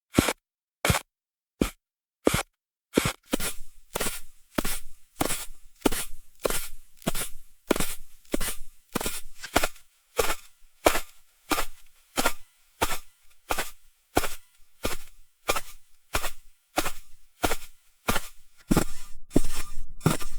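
Footsteps crunching in snow at a steady walking pace of about two steps a second. The first few steps are spaced a little wider, and near the end the crunches get louder and run together.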